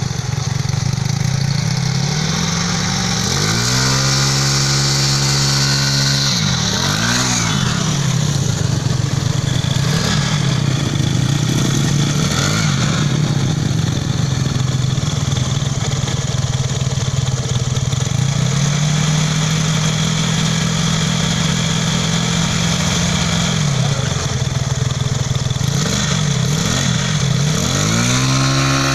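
Suzuki Skywave 125 scooter's single-cylinder four-stroke engine being revved in repeated blips that rise and fall back, with a steady held rev for several seconds past the middle.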